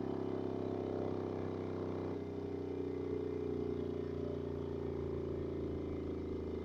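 Subwoofer playing a low test sine tone from a rebuilt Soundstream Class D monoblock car amplifier, its cone making long excursions. It gives a steady low hum with strong overtones, whose pitch shifts a little about two seconds in as the sine sweep steps down.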